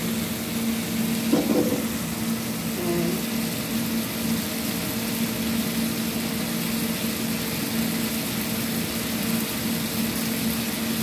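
Tongkol in balado chilli sauce simmering and sizzling in a pan on a gas stove, a steady hiss. Under it runs a steady low hum. A brief short sound stands out about a second and a half in.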